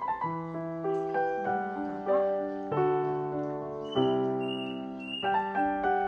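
Background piano music: gentle sustained chords with a simple melody, the chord changing every second or so.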